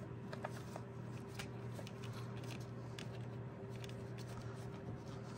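Light clicks and rustling of a gloved hand pushing a plastic MAP sensor into place in an engine's intake manifold, over a steady low hum.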